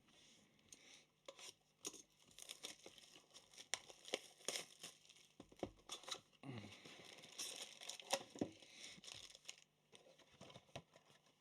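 Trading-card pack wrappers being torn open and crinkled by hand: faint, irregular tearing and crinkling with many small clicks, busier in two stretches.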